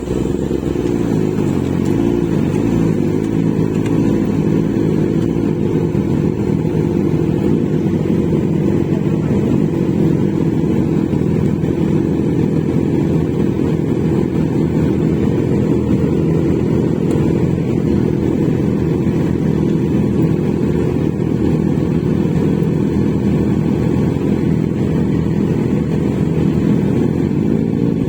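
Motorcycle engine running while riding, its pitch shifting over the first several seconds, then holding at a fairly steady cruise.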